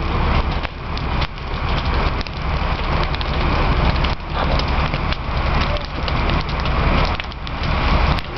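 Burning wood-frame house: a steady rush of flames with dense crackling and popping throughout, over a steady low rumble.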